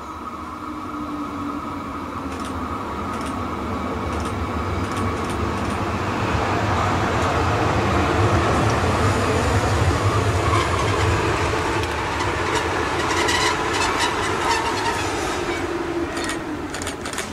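A DB class 143 electric locomotive hauling double-deck passenger coaches rolls into a station, slowing as it arrives. The rumble of wheels and traction motors grows louder, then eases a little. In the second half come sharp clicks and squeaks from the wheels and track.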